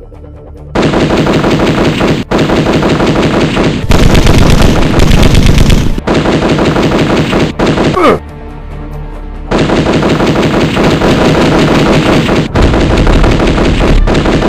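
Rapid-fire gun sound effects in long, fast bursts, broken off for about a second and a half a little past halfway, then starting again.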